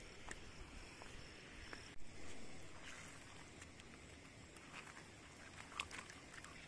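Fish being shaken out of a nylon net onto wet ground: a soft thud about two seconds in, with faint rustling of the net and scattered light taps and slaps.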